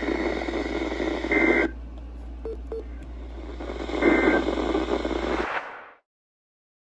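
Hissy radio reception of an Emergency Alert System broadcast with a steady low hum, broken twice by short bursts of the warbling two-tone EAS data signal, about a second and a half in and about four seconds in. These bursts mark the end of the alert message. About six seconds in, the audio fades out to silence.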